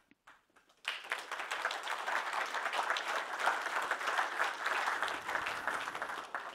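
Audience applauding, breaking out suddenly about a second in and dying away near the end.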